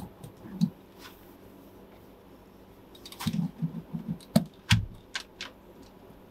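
A hand roller working foil-faced butyl sound-deadening mat onto a car's floor pan: intermittent crinkling and clicking of the foil, quiet for a couple of seconds, then busier, with a sharp knock and a low thump a little past the middle.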